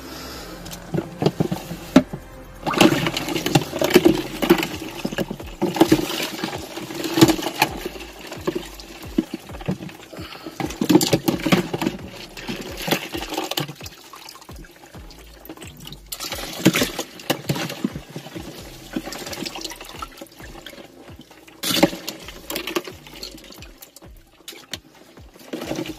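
Ice water sloshing and splashing in an RTIC 65 cooler as a hand stirs it, in uneven bursts with sharp clicks throughout.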